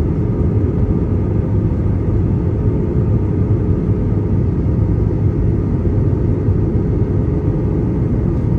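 Steady low rumble of a jet airliner's engines and rushing air, heard from inside the passenger cabin.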